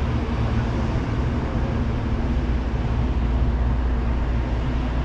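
Ship engines running: a steady low hum with an even rushing noise over it.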